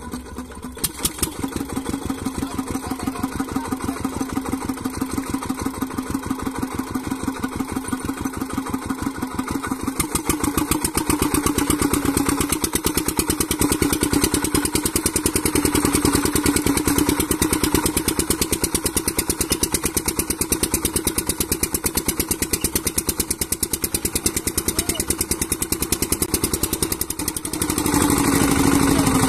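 Petter diesel engine chugging at a fast, steady beat as it drives a wheat thresher by a belt. The sound grows louder about a third of the way in and dips briefly near the end before picking up again.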